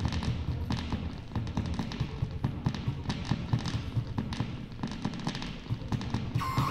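Circuit-bent electronic instruments putting out glitchy noise: a dense run of irregular clicks and crackles over a low rumble, with a high electronic tone coming in near the end.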